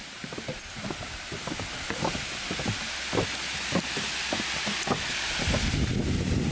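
Footsteps going down wooden plank steps, a run of uneven knocks, over the rush of water from a dam spillway that grows louder from about halfway through.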